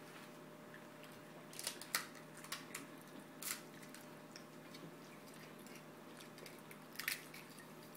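A small child chewing pani puri, with scattered short wet smacks and clicks over a low steady room hum.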